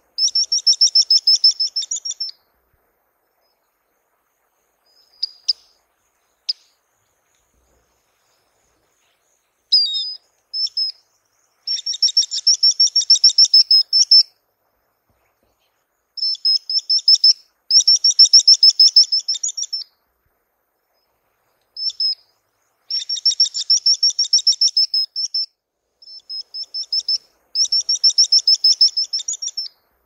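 Swallow-winged puffbird (Chelidoptera tenebrosa) singing: runs of rapid, high, thin repeated notes about two seconds long, given again and again with short gaps and a few single notes between.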